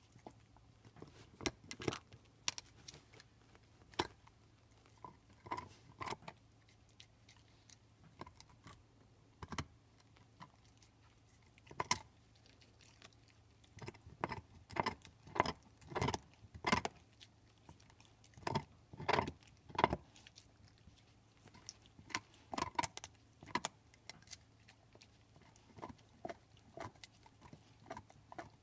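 A pit bull gnawing and crunching on a large beef bone: irregular sharp cracks and scrapes of teeth on bone, coming thickest in the middle.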